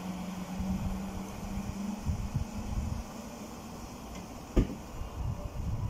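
Electric passenger train pulling away, a steady low hum that fades out about two seconds in, over irregular low rumbling, with a single sharp click later on.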